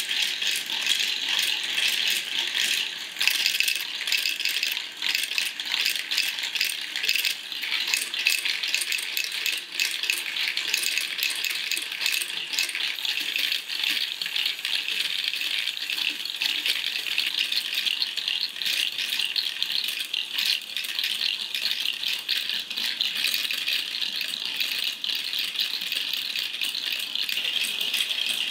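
A LEGO marble run in continuous operation: many small plastic balls rolling down LEGO tracks and clattering through the modules, a steady dense rattle of quick clicks.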